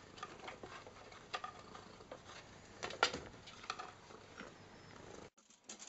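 Faint, scattered light clicks and taps as a cat moves about on a plastic height-measuring scale, with its paws and claws on the plastic. The strongest tap comes about three seconds in.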